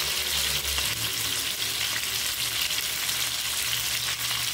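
Seasoned chicken pieces frying in hot oil in a nonstick frying pan: a steady sizzle with faint scattered crackles.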